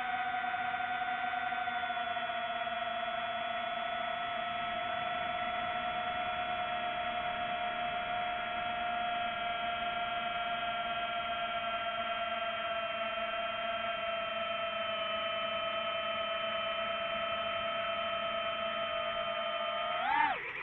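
DJI FPV drone's motors and propellers whining steadily at hover, the pitch sagging slightly over time. Near the end a quick throttle punch swings the pitch up and back down as the drone tips over into a dive.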